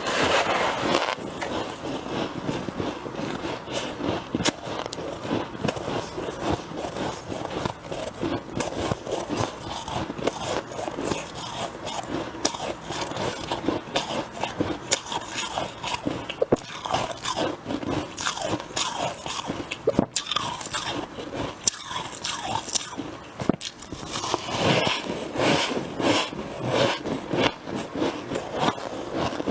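Close-up crunching of freezer frost being bitten and chewed in the mouth: continuous, irregular squeaky crunches.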